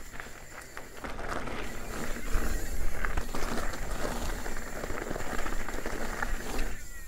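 A steel hardtail mountain bike's tyres rolling fast over dry, loose leaf litter and small rocks: a continuous crackling rush with scattered clicks and rattles. It gets louder about a second in.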